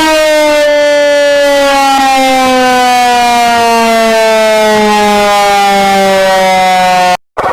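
Civil-defence siren tone slowly winding down, one loud steady wail whose pitch falls gradually, cutting off abruptly near the end.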